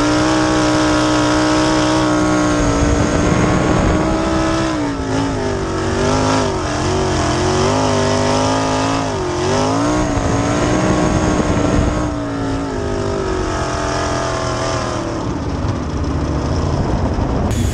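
Winged sprint car's V8 engine running at high revs, heard from on board the car. The engine note dips and climbs several times in the middle, then holds steady again.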